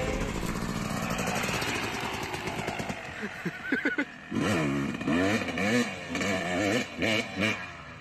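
Motocross bike engine revving hard as the bike pulls away on dirt. The pitch climbs and drops again and again as it goes through the gears.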